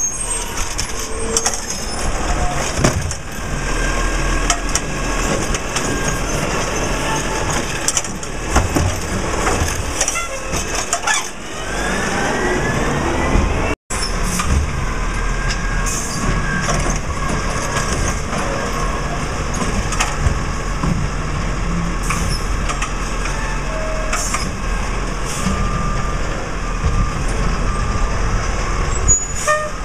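Peterbilt 320 garbage truck's diesel engine running as it moves slowly along the street, the pitch rising as it accelerates about twelve seconds in, with occasional short high hisses. The sound drops out for an instant about fourteen seconds in.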